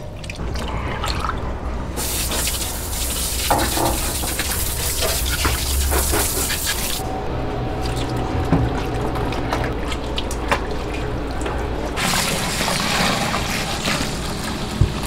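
Water running and splashing as raw meat is washed by hand. Near the end, a stream of water pours into a plastic bucket.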